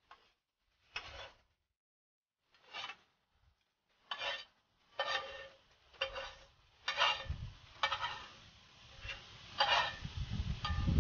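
A utensil scraping fried onion and carrot out of a metal frying pan into a soup pot: a dozen or so short scrapes, a few spaced out at first, then about one a second after some four seconds, with a low rumble under the later scrapes.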